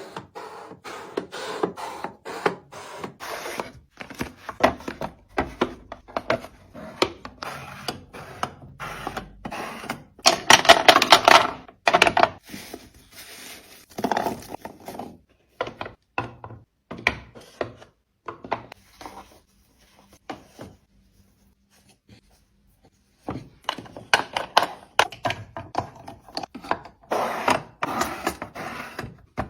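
Containers and groceries being handled and set down while a fridge is restocked: a run of clicks, knocks and rubbing, with a denser rustling stretch about ten seconds in and a short pause around twenty seconds in.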